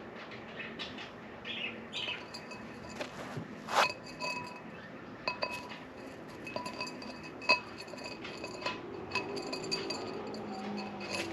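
Glass vase clinking and ringing as a cockatiel pecks inside it and knocks objects against the glass: irregular taps, two of them louder, each leaving a brief ring.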